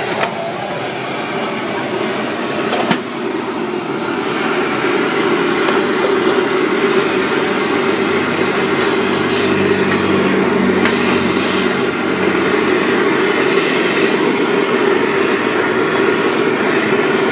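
Steady loud roar of the gas burners under a street noodle stall's boiling pots, with a single knock about three seconds in.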